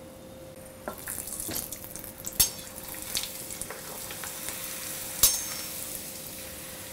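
Poha papad deep-frying in hot oil: the oil sizzles around the puffing papad, picking up about a second in. Two sharp clicks of steel tongs against the pan, about two and a half and five seconds in, the second the louder.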